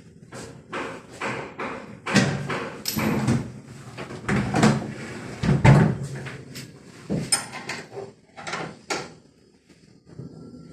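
Wrench and steel transit bolts being worked out of the back panel of a washing machine: an irregular run of metal clanks, scrapes and knocks, loudest in the middle.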